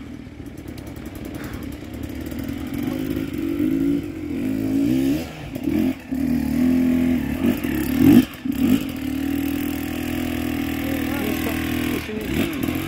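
Enduro dirt bike engine revving in repeated bursts, its pitch climbing and dropping, with one sharp loud burst a little past the middle, then holding a steadier note for a few seconds near the end.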